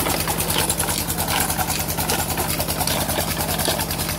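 Petter diesel engine running steadily under load, belt-driving a tubewell water pump, with a rapid even beat of about twelve strokes a second. Water gushes from the pump's outlet pipe into a concrete tank.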